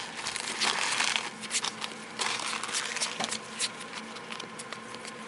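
A stack of 2009 Topps Unique baseball cards flipped through quickly by hand: a rapid, uneven run of soft flicks and slides of card against card.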